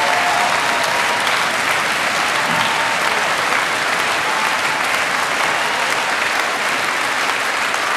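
A large audience applauding steadily, easing off a little near the end.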